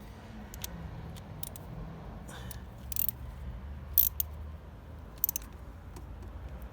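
Irregular sharp metallic clicks and clinks of hand tools and small parts being handled during scooter front brake assembly, the loudest about four seconds in and a quick cluster just after five seconds, over a steady low hum.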